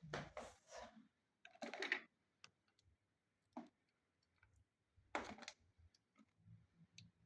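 Handling noise: a few short rustling bursts and scattered light clicks as items are moved about and weighed, with near silence between them.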